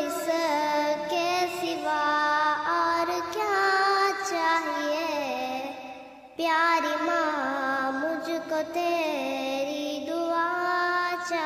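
A child singing a slow, tender Urdu song in long, gliding melodic lines, with a short break just before six seconds in.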